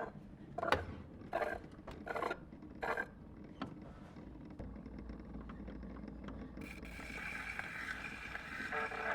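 Gramophone mechanism making short scraping strokes at a steady beat, about every 0.7 s, five times. A low hum follows, then from about two-thirds in the hiss of record surface noise, growing louder.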